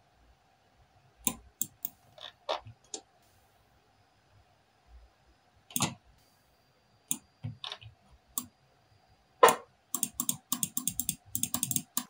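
Laptop keyboard keys and mouse buttons clicking: scattered single clicks, then a quick run of clicks in the last two seconds. A faint steady tone sits underneath.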